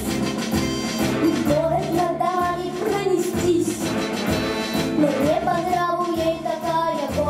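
A young girl singing a pop-style song into a handheld microphone over a recorded backing track.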